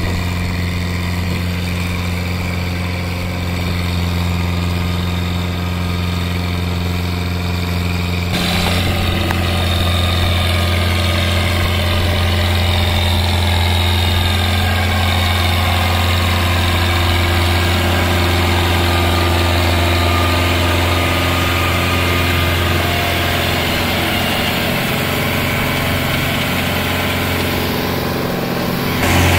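Farm tractor's diesel engine running steadily under load. About eight seconds in the engine note changes and gets a little louder.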